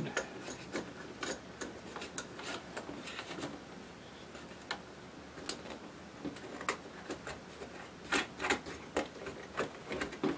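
Irregular clicks, taps and rubbing of hard plastic as a 3D-printed speaker horn and a pair of headphones are handled and pressed into place, with a denser run of clicks about eight seconds in.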